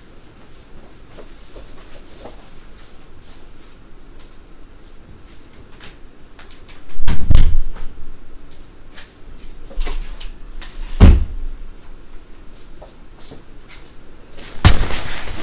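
Two heavy thuds, about seven and eleven seconds in, with lighter knocks between them, like a door being shut in the house. Near the end comes loud rustling and handling noise as someone comes right up to the camera.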